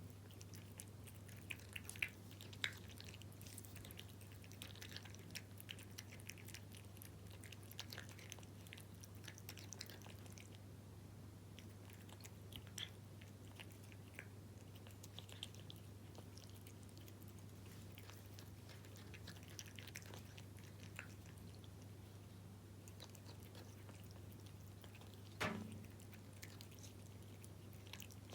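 A cat eating Felix beef-in-jelly wet food: faint, irregular wet chewing with many small clicks, over a steady low hum. About 25 seconds in comes one louder, brief sound that falls in pitch.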